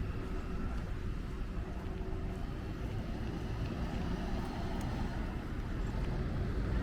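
Strong wind buffeting the microphone: a constant, uneven low rumble.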